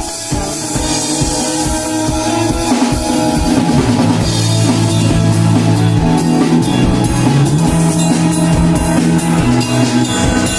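Rock band playing an instrumental passage: a drum kit beat with guitar, building in loudness over the first couple of seconds, with sustained bass notes coming in strongly about four seconds in.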